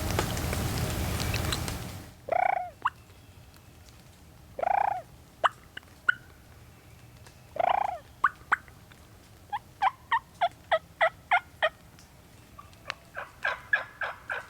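A loud rushing noise cuts off about two seconds in; then a wild turkey gobbles three times, a few seconds apart. Two runs of short turkey yelps follow, about four notes a second.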